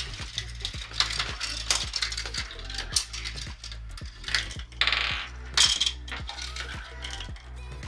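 Steel marbles running through a GraviTrax Pro marble run, clicking and clattering on its plastic tracks and rails, with a louder rattle about five seconds in.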